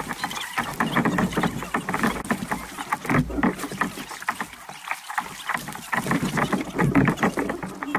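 Fast-forwarded audio of a tandem kayak being paddled: paddle strokes and splashing water run together into a quick, dense patter, with garbled sped-up voices mixed in.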